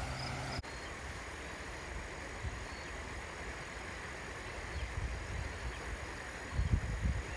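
Steady rush of flowing stream water, with low wind buffeting on the microphone near the end.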